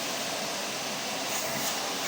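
Vacuum cleaner running with a steady, unbroken drone of noise.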